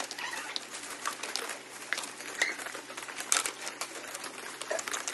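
Plastic bags and clear plastic packaging rustling and crinkling, with many small clicks and taps as firework shells are handled and packed by hand.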